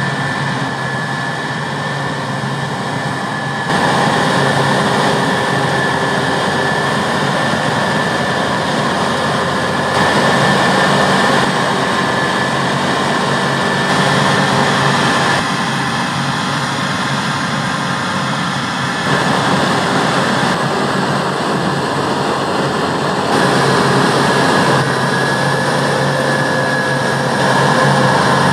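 Claas Lexion 7700 Terra-Trac combine harvester working in wheat: a steady engine drone with a high mechanical whine. Its loudness jumps abruptly up or down several times.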